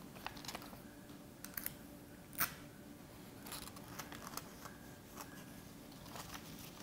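Sheets of paper rustling and crinkling softly as hands fold and press a paper sundial's fin and base, with scattered light clicks and one sharper crackle about two and a half seconds in.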